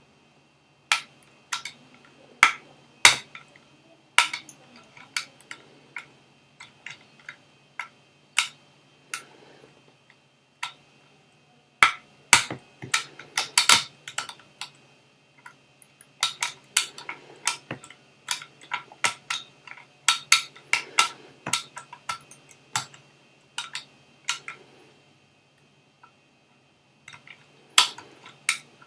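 Lever-lock picking tools working inside an ERA Fortress lever lock: sharp, irregular metallic clicks and taps as the picks scrape back and forth and lift the levers, with short pauses between runs of clicks.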